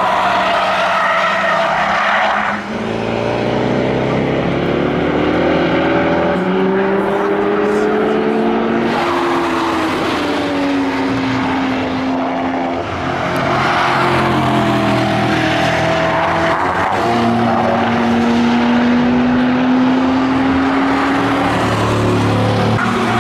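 Cars on a race track at speed, their engines revving and the pitch gliding up and down as they accelerate through corners and pass by, over a steady hiss of tyre and road noise. The sound changes abruptly twice, about two and a half seconds in and again around the middle, as one car gives way to the next.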